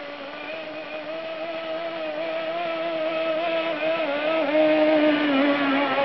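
Small nitro glow engine of a Kyosho Blizzard RC snowcat running steadily at a fairly high speed, its pitch wavering slightly, growing louder as the model comes closer.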